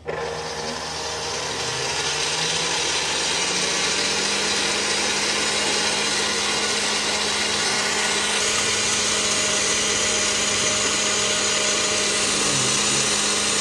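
Electric stand mixer switching on and running steadily, its wire balloon whisk beating whipping cream in a stainless steel bowl. The motor sound builds over the first couple of seconds as it comes up to speed, then holds as a steady whir with a constant low hum.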